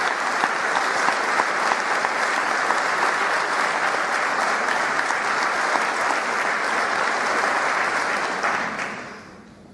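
Concert audience applauding, many hands clapping at once, dying away about nine seconds in.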